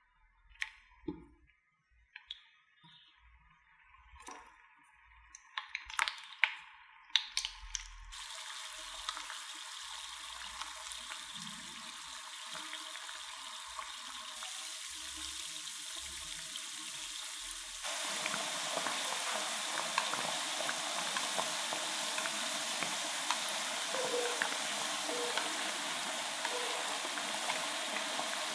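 A few light clinks and taps of utensils, then potato cakes frying in cooking oil in a pan: a steady sizzle that starts about eight seconds in and gets louder at about eighteen seconds.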